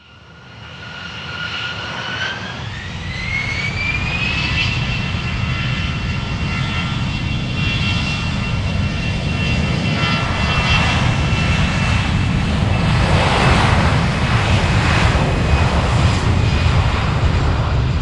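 Airplane engines at take-off power: a high whine rises in pitch over the first few seconds as the engines spool up, then a steady roar builds and grows loud.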